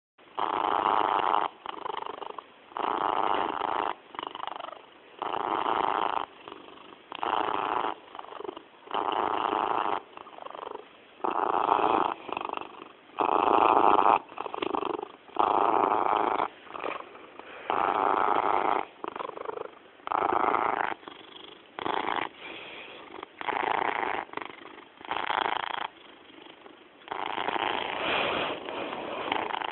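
Tomcat purring steadily, the purr swelling and easing in turn about every two seconds.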